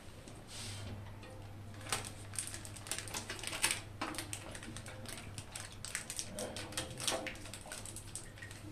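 Scattered small clicks and taps of a screwdriver and fingers working at an electric geyser's heating-element flange and thermostat wire connectors, over a low steady hum.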